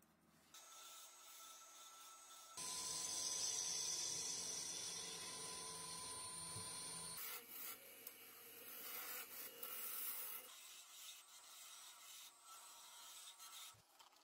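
Spinning wood on a lathe being sanded and cut with a turning tool: a dry rubbing, rasping hiss that changes abruptly several times. It is loudest for about four seconds from near the three-second mark, with a faint steady tone underneath.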